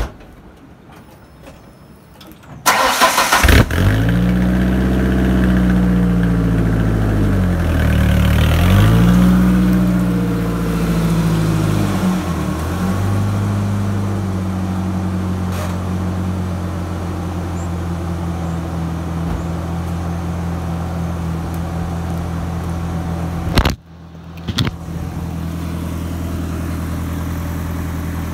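Ford Ranger pickup engine cranking briefly and catching, then revved several times through a newly fitted chrome exhaust tip before settling into a steady idle. Near the end there is a sudden break, after which the idle goes on a little quieter.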